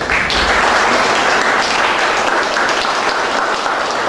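Audience applauding, the clapping starting abruptly all at once and carrying on steadily.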